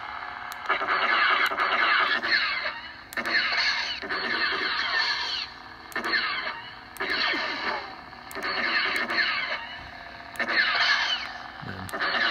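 Lightsaber sound effects from an NEC Spark Color 2 soundboard played through the saber's small speaker: a crackling, unstable saber hum rising into repeated swooshing, squealing bursts of a second or two, about half a dozen of them with short drops in between.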